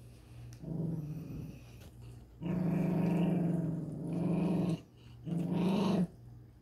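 A Maltese dog growling low in three stretches, the middle one the longest, while waiting to be hand-fed chicken.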